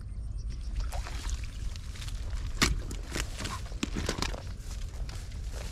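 Footsteps and rustling through grass and weeds on a ditch bank: irregular crunches and swishes, over a steady low rumble.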